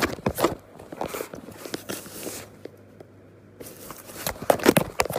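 Cat biting and clawing at a cardboard box from inside: scratchy crunches and crackles of cardboard, a lull about two and a half seconds in, then a louder burst of crunching near the end.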